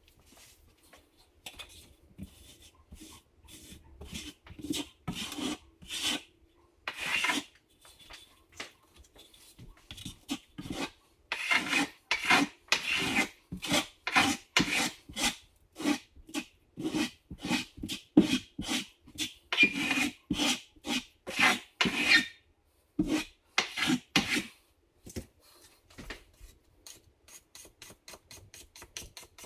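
A hand tool scraping in repeated rasping strokes, about two a second. The strokes are loudest through the middle stretch and grow faint near the end.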